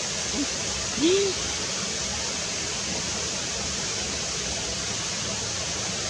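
Steady rushing noise, like running water, with a brief low rising-and-falling sound about a second in.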